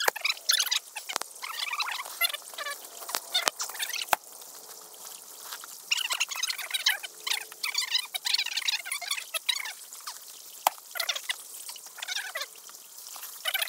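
A chorus of frogs calling, rapid trilling calls that swell and fade in waves, with a few sharp knocks in the first few seconds.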